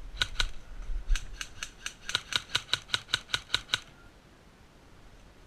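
Airsoft rifle firing a quick string of single shots, about five a second, in sharp even clicks that stop nearly four seconds in.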